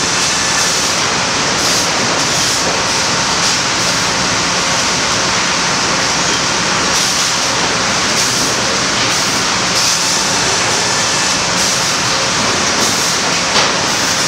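Sawmill conveyor machinery running: chain transfers and powered rolls carrying cants, a loud steady din with a few brief knocks.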